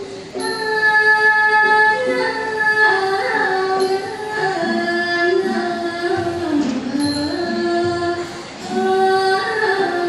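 A girl sings a solo Thai classical vocal line into a microphone, holding long notes that slide from pitch to pitch. A faint high ring sounds about every three seconds.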